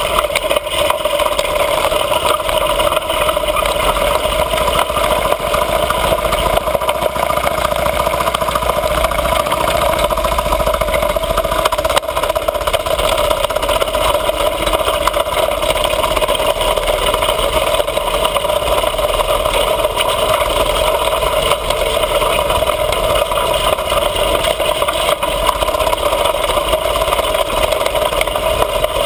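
Mini bike's small engine running at a steady, even pitch while riding over a grass track.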